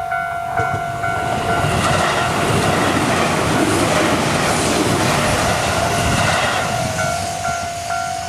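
Japanese railway level-crossing warning bell ringing its repeating electronic ding, about three times a second. An electric train passes over the crossing from about a second and a half in until about six and a half seconds, and its wheel and track noise drowns the bell. The dings come through again near the end.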